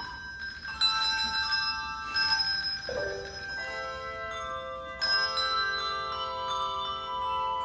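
Handbell choir ringing: several handbells struck together in chords, their clear tones ringing on and overlapping, with new chords struck every second or two.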